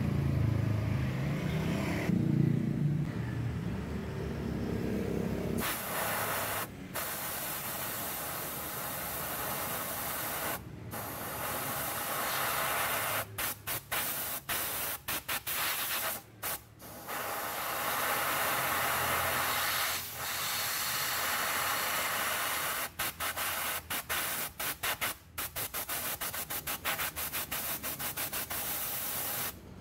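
Compressed-air blow gun hissing into the oil filler hole of a Honda CB150R engine, blowing out the last of the old oil through the open drain hole. The trigger is pressed and released in many short bursts, starting after a low rumble in the first few seconds.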